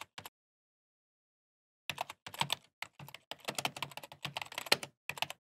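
Computer keyboard typing. A few quick keystrokes at the start, then after a pause of about a second and a half a fast run of keystrokes for about three seconds, and a last short burst near the end.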